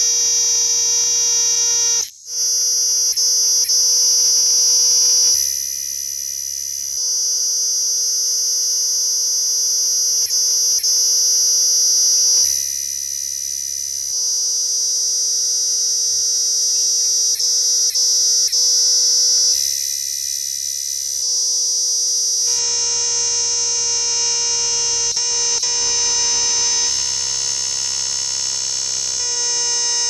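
Cicada singing: a loud, steady, high-pitched buzz that breaks off briefly about two seconds in and shifts slightly in tone every few seconds.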